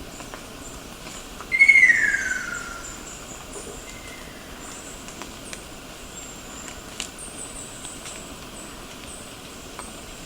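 Ruddy kingfisher giving one loud call about a second and a half in, sliding down in pitch and fading over about a second, with a much fainter short call near the four-second mark. Faint, high-pitched short chirps repeat in the background.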